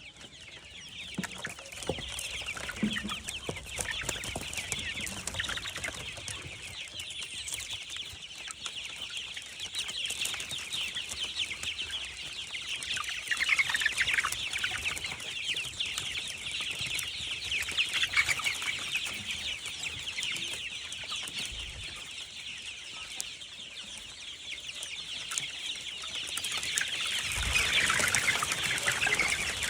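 A large flock of chickens in a poultry house calling all at once: a dense, continuous chatter of many short, high-pitched calls and clucks, swelling louder a few times.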